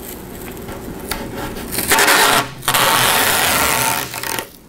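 Masking tape being pulled off the roll and laid down: two noisy rips, a short one about two seconds in and a longer one right after it.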